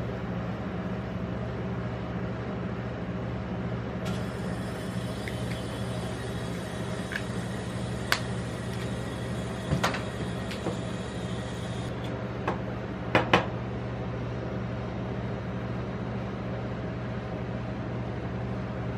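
Steady hum of a rolled ice cream machine's refrigerated cold plate. Over it, foil wrappers crinkle as chocolate eggs are unwrapped, and a handful of sharp clicks and taps, the loudest about eight, ten and thirteen seconds in, come from chocolate shell and eggs being handled on the steel plate.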